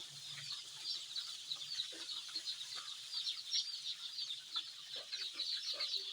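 A brooding flock of day-old chicks peeping: many short, high chirps overlapping into a continuous chorus.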